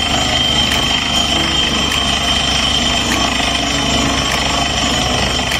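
Borewell drilling rig running steadily, drilling with a steady high whine and faint clicks at an even pace while compressed air blows rock dust out of the bore.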